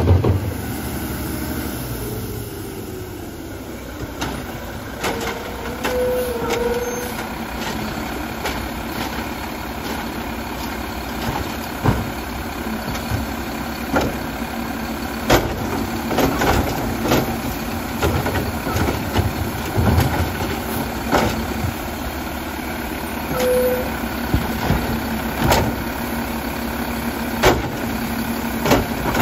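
Mack LR side-loading garbage truck idling while its automated arm grips a wheeled cart, lifts it and dumps it into the hopper. Repeated sharp knocks and bangs come from the cart and arm, and a short squeal is heard twice.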